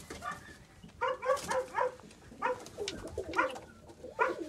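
Domestic pigeons cooing, a run of short calls one after another from about a second in.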